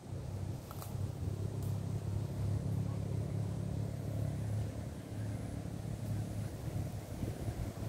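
Low, steady engine drone, like a motor vehicle running, loudest through the middle and easing slightly toward the end.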